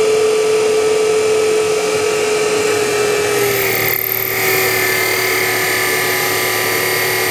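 A 24-volt, 1 hp electric motor running with a steady whine. As the wire-rope Prony brake is loaded to draw about 15 amps, the whine drops slightly in pitch about three and a half seconds in and a higher tone joins it.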